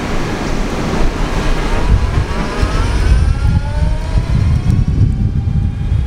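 Arc Aileron v2 electric skateboard's Fusion drive motors, run under FOC control, accelerating from standstill: a thin whine that climbs steadily in pitch as the board gathers speed. It sits over a heavy low rumble, the loudest part of the sound.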